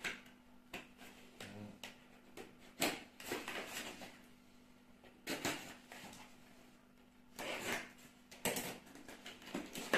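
Parts and packaging being handled while spare parts are unpacked from a parcel: scattered rustles of wrapping and light clicks and knocks, a few louder handling noises about three, five and seven to nine seconds in.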